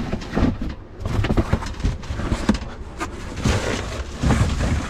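Rummaging through trash inside a dumpster: irregular knocks and clatters, with a stretch of rustling about three and a half seconds in.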